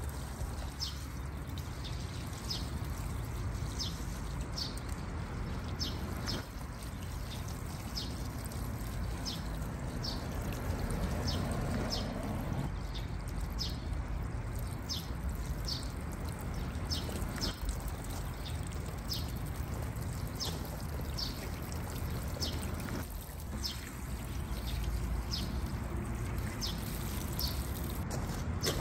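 Water pouring from a watering can's spout onto planter soil and leaves, a steady splashing trickle. A bird chirps in short, evenly repeated notes over it.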